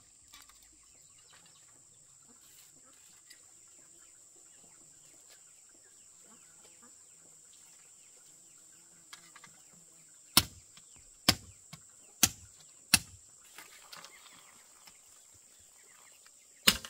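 Sharp strikes on bamboo: four about a second apart, a few smaller knocks around them, then one more strike a few seconds later, over a quiet background.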